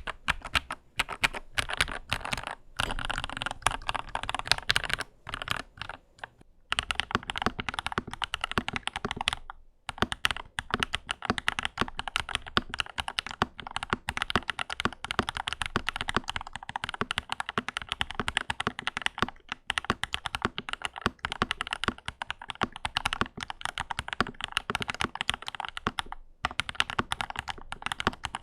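Lychee G80 mechanical keyboard with JWK Black linear switches being typed on steadily in a sound test: a rapid run of keystroke clacks. After a short pause about six seconds in, the typing carries on with the board in its modded configuration.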